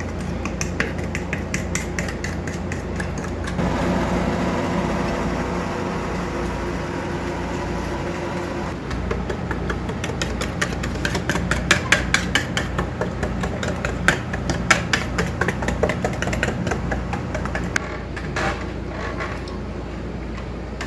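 Rapid, uneven clinking and tapping of kitchen utensils against dishes during cooking, over a steady low hum. The taps are loudest a little past the middle.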